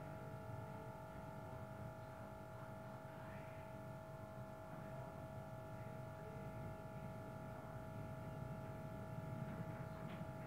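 Faint, steady electrical whine of several held tones over a low background hum, unchanging throughout.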